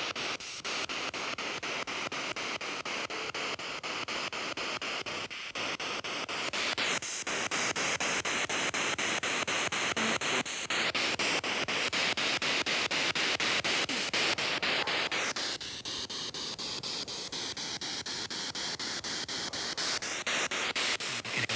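P-SB7 spirit box sweeping through radio frequencies, played through a small portable speaker. It gives a steady hiss of radio static chopped into rapid short steps, and its tone shifts every few seconds.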